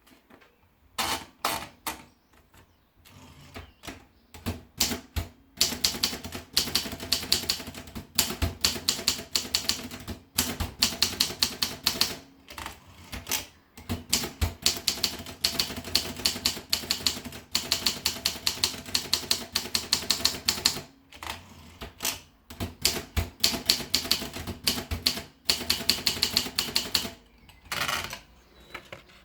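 Olympia Progress typewriter being typed on: runs of rapid keystrokes, several a second, with short pauses between runs.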